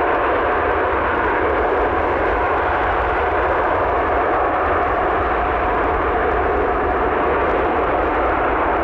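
Airbus A380 jet engines running, a loud, steady jet noise with a faint steady whine and a low rumble underneath, neither rising nor falling.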